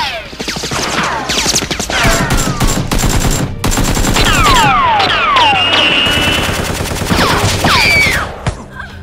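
Rapid automatic gunfire sound effects, dubbed over the action, with many falling whistling zips of shots flying past. The firing stops about eight and a half seconds in.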